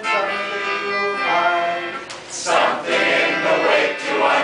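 Voices singing a song together, with a melodica accompanying.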